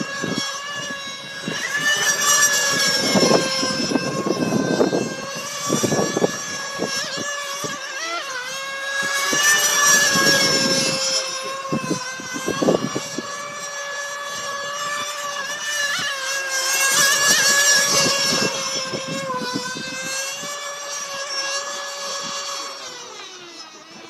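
Radio-controlled racing boat's small engine running flat out, a high whine with many overtones that swells and fades about every seven seconds as the boat laps the course.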